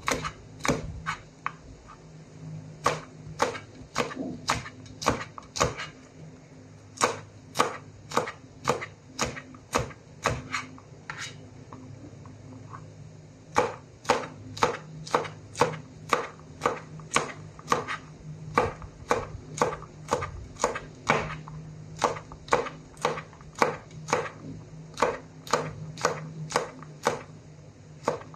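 Chef's knife chopping long green beans into small pieces on a plastic cutting board: sharp, even knife strikes about two to three a second, with a short break about eleven seconds in before the steady chopping resumes.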